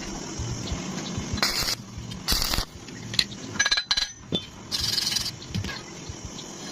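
Metal pieces clinking together with short ringing tones, over a steady noisy background, with three brief bursts of hiss.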